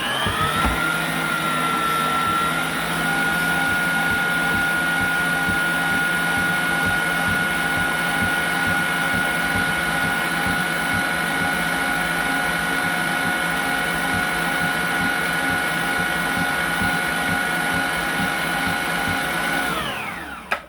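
Electric mixer beating a thick cream cheese mixture, its motor running at a steady high whine. The pitch rises about a second in as it comes up to speed, and near the end it winds down and stops.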